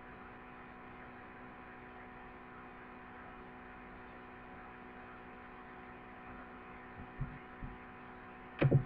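Steady electrical mains hum and hiss from a computer microphone's recording chain, with a few faint knocks late on and a short, louder knock just before the end.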